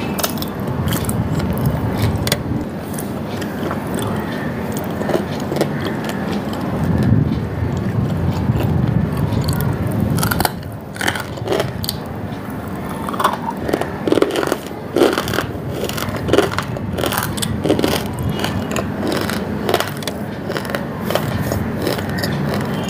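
Close-miked eating: a person biting and chewing a crunchy white chunk, a run of sharp crackles and crunches over a low rumbling mouth and handling noise, the crunches coming thickest from about halfway.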